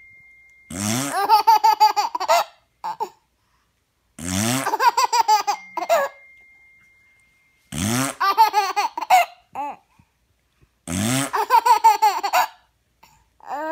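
A baby belly-laughing in four separate bouts, each a rapid string of ha-ha pulses, with short pauses between them.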